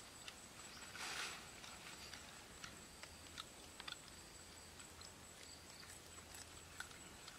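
Very quiet outdoor ambience with a thin steady high tone, scattered faint small clicks, and one short soft rustle about a second in.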